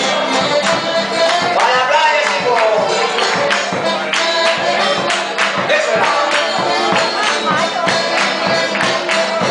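A folk band playing a Chilote waltz (vals chilote), with singing over a steady, even beat.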